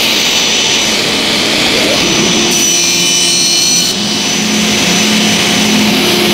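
Table saw running at full speed with a steady whine. A thin wood panel is pushed through the spinning blade partway through, adding a denser, higher hiss for about a second and a half.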